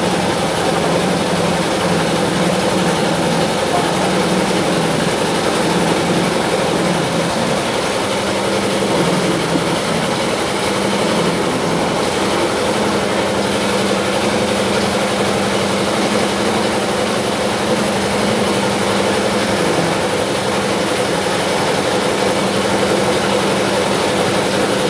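A steady machine drone like a running engine, with a low hum that wavers at first and settles into a steady tone about halfway through.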